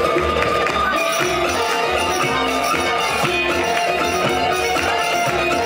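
Live band playing a tsifteteli dance tune: a plucked string instrument carries the melody over drums with a steady beat.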